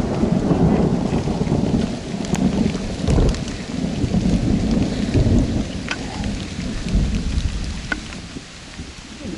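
Heavy rain falling, with a dense low rumbling and a few sharper drop ticks; the rumble eases somewhat near the end.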